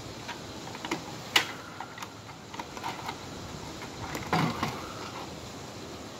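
Plastic clicks and knocks from handling a Simplex horn strobe unit and its wiring, with one sharp click about a second and a half in and a louder clatter about four seconds in.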